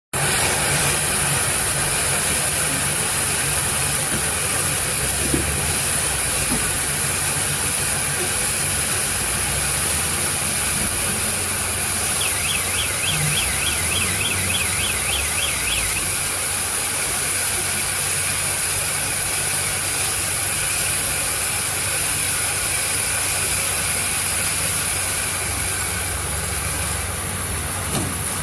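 Forage baling machine running: a steady mechanical noise with a strong high hiss and a low hum. For a few seconds near the middle a quick run of high chirps sounds, about four a second.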